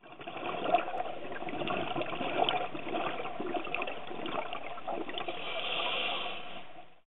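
Underwater sound picked up by a diving camera: a steady muffled rush of water with scattered small clicks, one sharper click a little under a second in.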